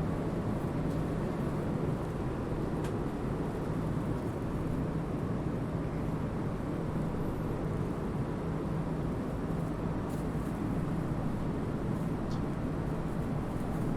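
Steady airliner cabin noise: an even drone of jet engines and rushing air, with a constant low hum.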